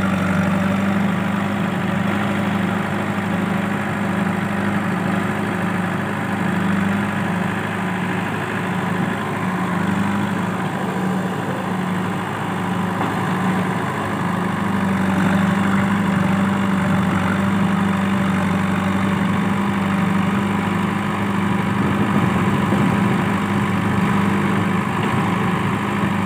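JCB 3DX backhoe loader's diesel engine running steadily at a fairly constant pitch while the rear backhoe arm digs and swings.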